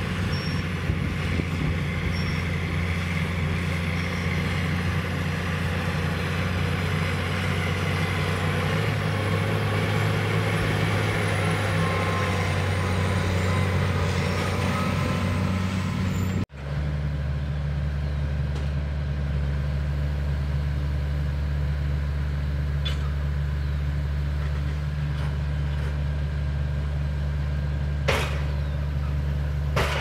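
Case IH MX255 tractor's diesel engine running steadily while pulling a Great Plains 2N-2410 planting drill. The sound changes abruptly about halfway through to a lower, steadier drone, with one sharp click near the end.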